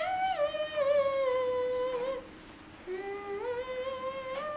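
Baby monkey giving two long, whining coo calls, each held for about two seconds; the first drifts slightly down in pitch, and the second starts about three seconds in.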